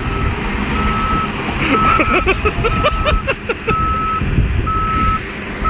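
A Caterpillar D6R bulldozer's backup alarm beeps about once a second, a steady high tone, over its diesel engine running under load. The alarm marks the dozer in reverse as it tries to back out of the deep flooded mud it is mired in.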